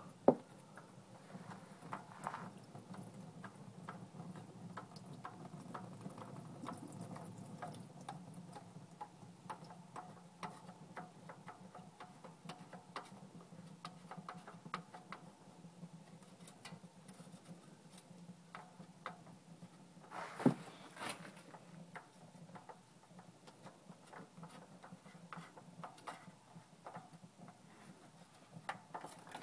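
Engine oil dripping from the oil filter area into a plastic drain pan: a faint, fast pattering of small ticks while the filter is worked loose by hand. There are a couple of louder knocks, one just after the start and one about twenty seconds in.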